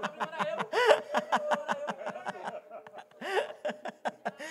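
People laughing in quick bursts of chuckles, with a steady tone held underneath.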